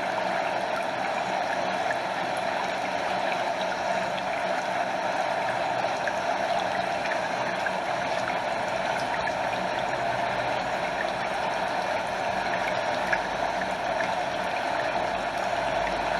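Stream water running over a small waterfall and lapping close by: a steady, unbroken rush.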